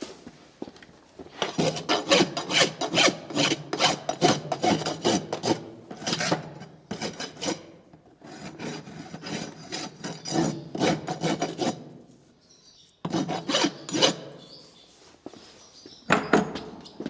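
Farrier's rasp filing a horse's hoof, in several runs of quick back-and-forth strokes with short pauses between them.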